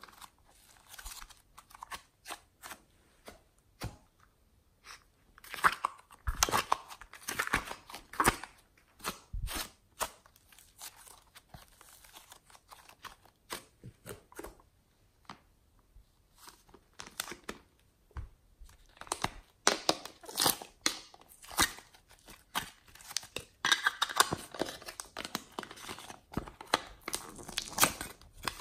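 Hands squeezing, stretching and pulling apart thick clay-textured slime: irregular sticky clicks, crackles and tearing sounds, busiest around six to eight seconds in and through the last ten seconds.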